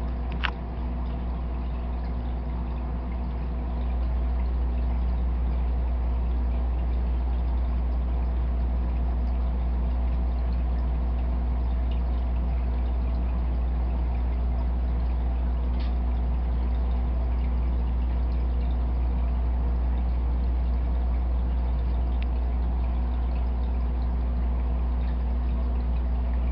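Aquarium filter running: a steady trickle of water over a low, constant motor hum.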